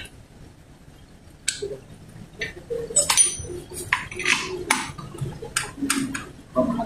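Metal tools and parts clinking and knocking at the front drum-brake hub of a Honda TMX 125 motorcycle. The irregular clinks start about a second and a half in, and one of them has a short metallic ring.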